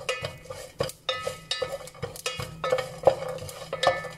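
A spoon stirring whole spices in ghee in a metal pot, scraping and clinking against the pot a few times a second, each stroke leaving a short metallic ring.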